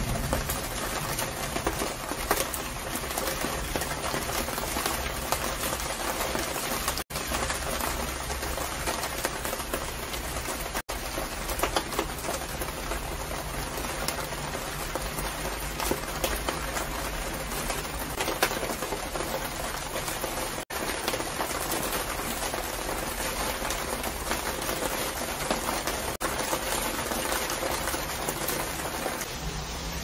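Rain pattering steadily on the clear plastic cover of a balcony railing succulent house: a dense, even spatter of drops that breaks off for an instant a few times.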